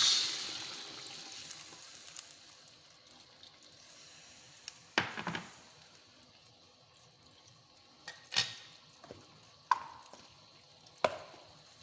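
Sizzling of frying chillies, shallots and tomato in a pan dying away over the first couple of seconds as a little water is added, then a handful of short knocks of the stirring utensil against the pan.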